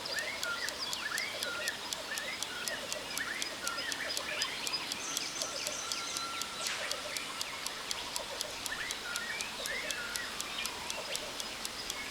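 Jungle ambience: birds calling in short repeated whistled phrases over a steady waterfall hiss, with a fast, even ticking of about five a second running through it.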